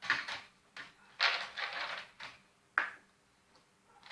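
Almonds and other nuts clattering onto a cookie sheet as they are poured and spread out, in a few bursts of rapid clicks, with one sharp click near the end.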